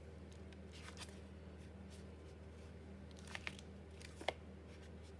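A few faint clicks and light handling taps from craft materials, the loudest about four seconds in, over a steady low hum.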